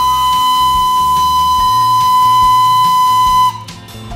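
Darjeeling Himalayan Railway steam locomotive's whistle blowing one long, steady, high note that cuts off sharply about three and a half seconds in.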